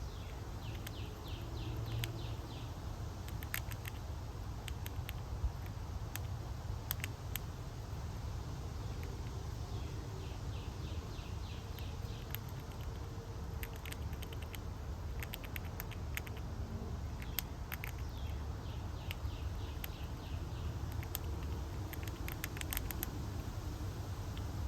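Squirrel gnawing and munching at a backyard feeder: short runs of rapid ticking about a second long and scattered sharp clicks, over a steady low outdoor rumble.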